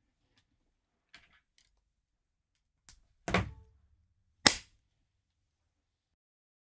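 A few faint clicks, then a dull thunk about three seconds in and a sharp, louder knock about a second later: handling knocks against a wooden desk.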